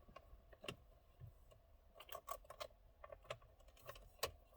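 Faint, irregular light clicks and taps of hand tools working at the steering wheel's mounting bolts.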